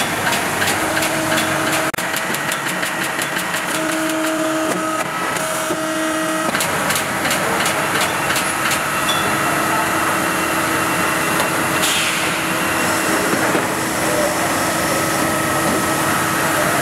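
Motor-factory production-line machinery running: a steady mechanical hum with a few held tones. Rapid, regular clicking runs through the first six seconds or so, and then the hum carries on steadier.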